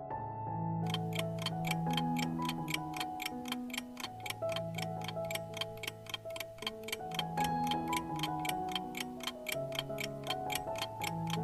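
Countdown-timer clock ticking, quick and even, starting about a second in, over soft background music with held piano-like notes.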